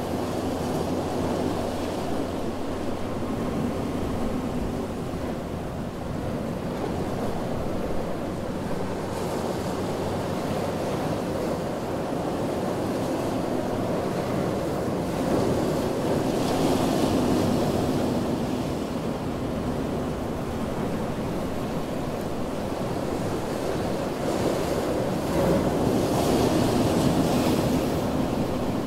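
Ocean surf washing onto a beach in a continuous rush, with two louder waves breaking, one about halfway through and one near the end.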